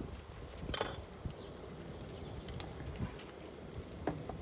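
Metal tongs clicking and clinking against steel pots and a tray while salad toppings are picked up. The sharpest click comes about a second in, with a few lighter clicks later, over a low steady background hum.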